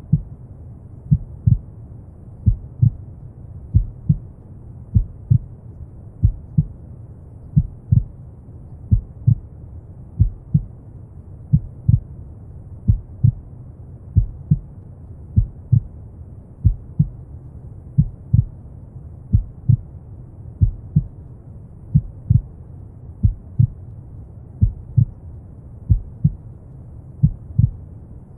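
Slow heartbeat: a steady lub-dub double thump repeating a little under once a second, over steady deep brown noise.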